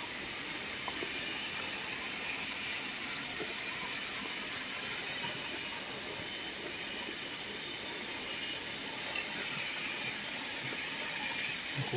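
Steady outdoor background hiss, even in level throughout, with no clear single source standing out.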